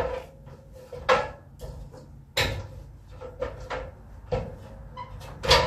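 Irregular knocks and thumps of wooden framing being handled, about seven in a few seconds, the loudest at the start and near the end. A low steady hum comes in about halfway through.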